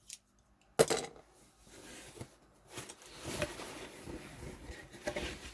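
A box cutter slicing open a cardboard shipping box: a sharp click about a second in, then uneven scraping and rustling as the blade runs through tape and cardboard.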